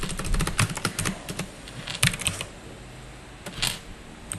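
Computer keyboard typing: quick runs of key clicks, dense in the first second and a half, another short run about two seconds in, then only a stray keystroke or two.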